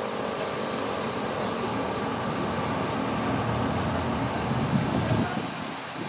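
Steady road-vehicle rumble, swelling as one vehicle passes close about five seconds in. The falling tone of the ASC T-128 siren winding down fades out faintly in the first second or so.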